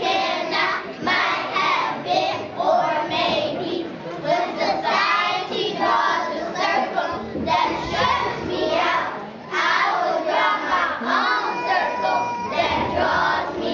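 A class of young children reciting a poem together in unison, in phrased chanting lines, with a brief pause about nine and a half seconds in.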